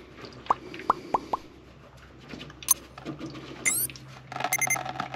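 Diesel fuel dripping from the loosened drain of a Duramax fuel filter canister into a drip pan: four quick plops in the first second and a half. Near the end comes an added electronic whoosh and chime.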